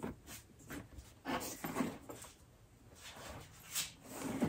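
Faint, scattered handling sounds: soft rustles and light knocks as a leather tote bag is moved about and slung over a shoulder.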